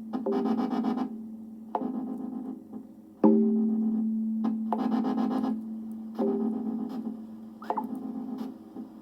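Synthesizer music: a steady low held note under a looping pattern of sharp-attack tones and chords that repeats about every three seconds.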